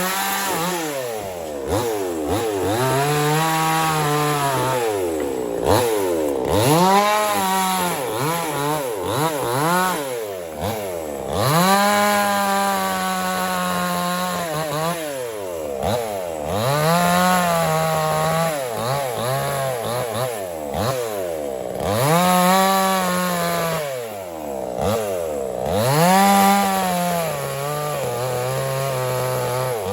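Small chainsaw engine running and cutting wood, its pitch rising and falling again every two to three seconds as the throttle is worked and the chain bites and eases.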